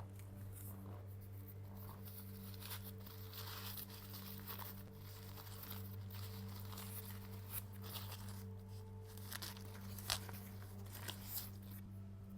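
Rustling and crinkling handling noises with small scattered clicks from tea being prepared by hand, the sharpest click about ten seconds in, over a steady low hum.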